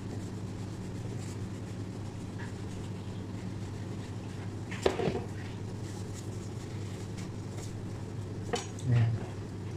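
Kitchen knife cutting through stacked flatbread and striking a plastic cutting board: a sharp knock about five seconds in and two more near the end, over a steady low hum.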